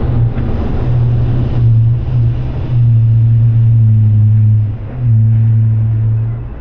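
Diesel tractor engine running with a low, steady drone as the tractor rolls slowly over, with rumble from its tyres on the concrete; the engine note dips briefly a few times.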